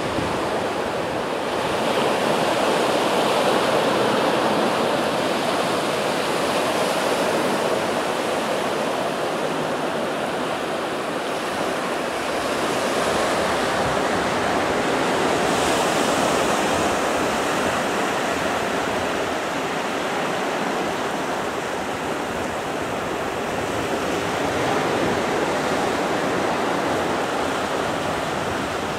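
Ocean surf washing up a sandy beach and breaking around rocks: a steady rushing that swells and eases a few times.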